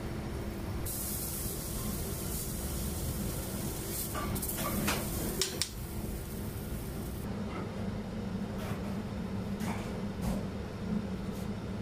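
A scallop sizzling on an oiled flat-top griddle: a high hiss that starts about a second in and stops about seven seconds in, with a few sharp clicks and scrapes of a metal spatula about midway. A steady machine hum runs underneath, and a few light clicks and knocks come near the end.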